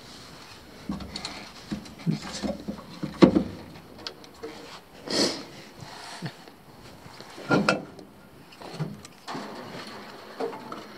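Scattered knocks and scuffs against the metal of an abandoned armoured vehicle as people climb out of the hatch and move over its hull. The loudest knock is about three seconds in.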